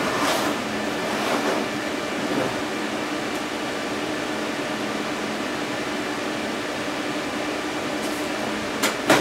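Steady fan-like hum with a few steady low tones. Light knocking and rubbing as a desktop PC tower is handled at the start, and two sharp clicks near the end.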